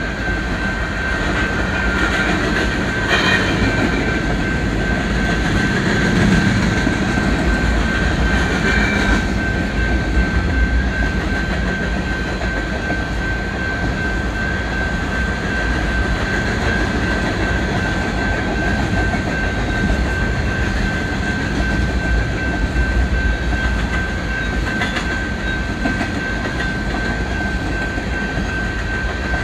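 BNSF freight train of covered grain hopper cars rolling past, steel wheels clattering over the rail joints in a steady clickety-clack, with a steady high-pitched whine over the rumble. The rumble is a little louder in the first several seconds.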